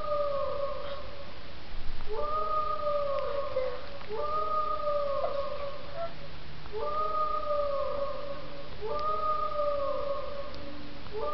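Dog howling along with a played sound clip: repeated wails that rise and then hold, about every two seconds. A brief louder fluttering noise comes about two seconds in.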